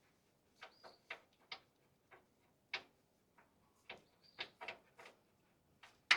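Irregular metal clicks and clinks of sockets being handled and tried on a nut to find the right size, about a dozen separate taps, a few with a short metallic ring, the loudest at the very end.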